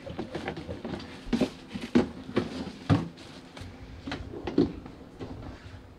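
Irregular knocks and rattles of a black metal wire pull-out trash can rack and the plastic trash can on it as the rack is handled and slid on its drawer slides.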